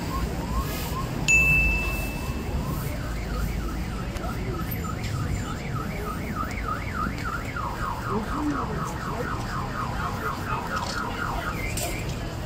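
Car alarm sounding and cycling through its tones: short rising chirps about three a second, then a warbling wail, then a faster trill from a little past halfway, stopping shortly before the end. A short sharp beep cuts in about a second in, over a low traffic rumble.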